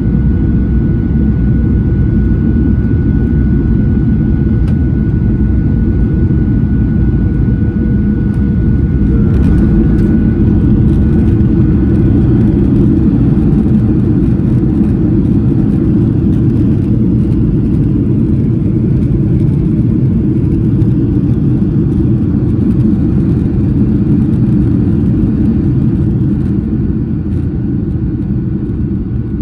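Steady roar of a Boeing 737 airliner in flight, heard inside the cabin: engine and airflow noise, deep and even, with a thin high whine that fades out about a third of the way in.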